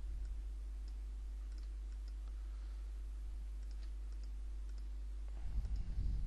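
Faint, scattered computer mouse clicks over a steady low hum, with a brief low rumble near the end.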